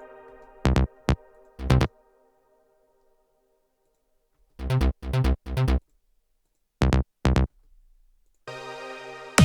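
Electronic trance music in a sparse breakdown: a held synth chord fades out, then short percussive hits come in small groups with a stretch of silence between them. Near the end a synth chord swells back in.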